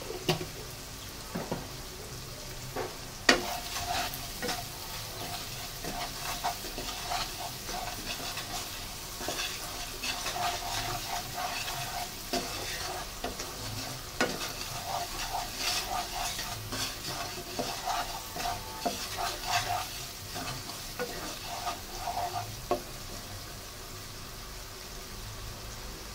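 Spice paste frying in mustard oil in a nonstick wok: a steady sizzle with repeated scraping strokes of a wooden spatula stirring it as the masala is fried down. The stirring thins out near the end.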